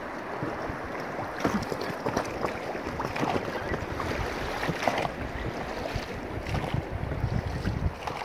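River water lapping and splashing irregularly against a drifting raft, with wind on the microphone.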